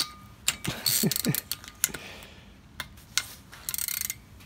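Ratcheting screwdriver turning a thread tap in a drilled hole in a thin metal thermos, its ratchet clicking in quick bursts as the handle is swung back and forth. A fast run of clicks comes near the end.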